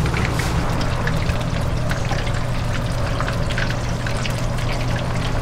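Flat dumplings (napjak-mandu) sizzling in shallow oil on a griddle: a steady hiss full of small crackling pops, over a steady low hum.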